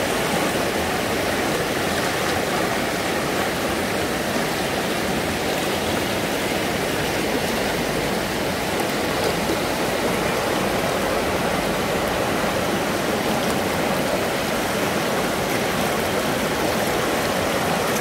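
Fast, shallow mountain river rushing and splashing over stones and boulders: a steady, unbroken sound of running water.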